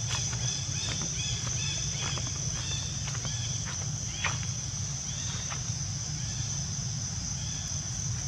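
A steady high-pitched insect drone over a low rumble, with a run of short squeaky calls from young macaques, several a second, thinning out after about five seconds.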